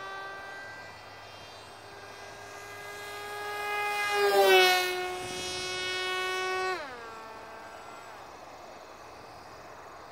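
Whine of an electric RC plane's brushless outrunner motor, a Turnigy Aerodrive D2826-10 1400 kV, spinning a 7.5-inch propeller. The whine swells to its loudest as the plane passes close about four seconds in, dipping slightly in pitch as it goes by. A couple of seconds later the throttle is cut and the whine slides down in pitch and dies away.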